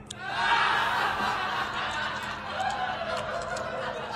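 Human laughter: chuckling and snickering.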